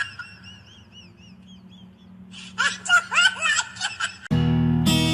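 Faint quick high chirps, then a burst of high-pitched laughter. Acoustic guitar music starts abruptly about four seconds in.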